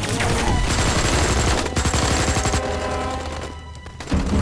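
Rapid machine-gun fire, many shots in quick succession, which dies down about three and a half seconds in before loud sound starts again near the end.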